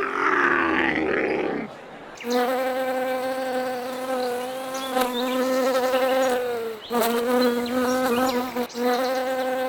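A flying insect, a fly or bee, buzzing steadily close by. The buzz breaks off briefly twice and starts again. It is preceded by a short, rough, noisy sound in the first two seconds.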